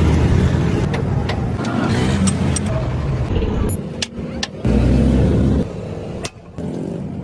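A vehicle engine running, low and dense, with a few sharp clicks and knocks, broken by abrupt cuts between short clips.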